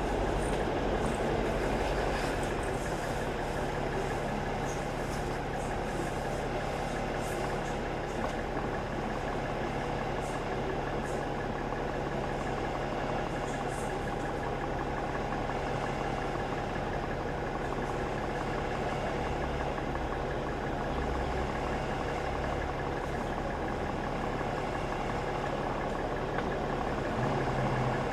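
Double-decker bus's diesel engine running steadily, heard from inside the passenger cabin, with a few light rattles.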